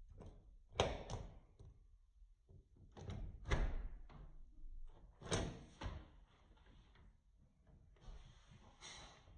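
Door-lock hardware being fitted: a series of sharp clicks and knocks a few seconds apart as the lever handle and plate are pushed into place and screwed on.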